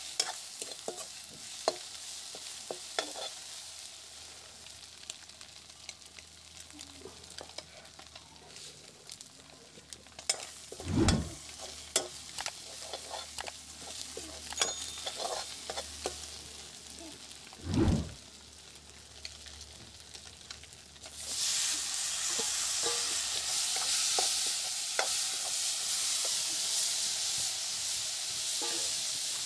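A metal ladle scrapes and stirs fish frying in a kadhai, with light sizzling and two dull thumps partway through. About two-thirds of the way in, a loud steady sizzle starts suddenly as chopped tomatoes go into the hot oil.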